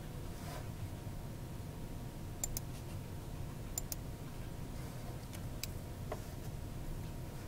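Computer mouse clicking several times, some clicks in quick pairs, over a steady low hum of room and computer noise.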